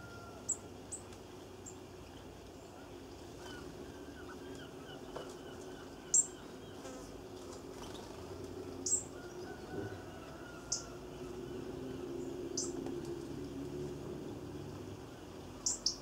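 Short, sharp high-pitched songbird chirps, about eight scattered through, the loudest about six seconds in, over faint twittering and a steady low hum.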